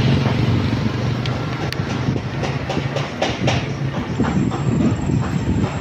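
A motor vehicle's engine running close by: a steady low drone with a fast, uneven clatter over it.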